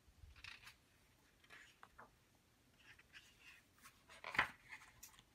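Paper page of a hardcover picture book being handled and turned: faint rustles, then a louder page-turn swish about four seconds in.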